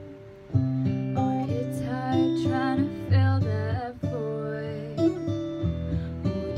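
Acoustic guitar backing track playing picked notes and chords, the next phrase coming in about half a second in after a fading chord, with a woman singing over it.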